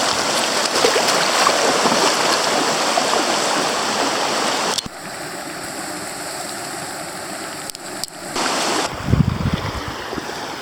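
Flash floodwater rushing down a desert creek: a steady, loud noise of churning water that drops suddenly in level a little under five seconds in, with low rumbling gusts near the end.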